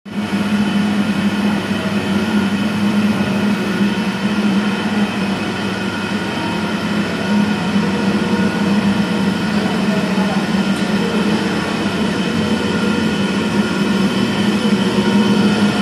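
Factory machinery running: a steady, loud motor hum with a strong low drone and several steady higher whines over a noisy background.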